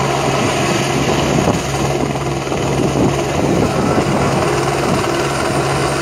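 Light military helicopter hovering low, its rotor and turbine making a steady drone with a constant low hum.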